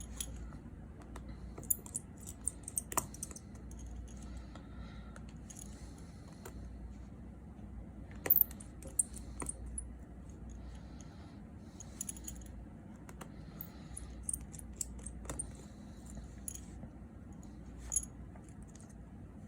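Small metal repair tools ticking and clicking against a phone's metal frame and parts: scattered light metallic clicks, louder about eight seconds in and again near the end, over a faint steady hum.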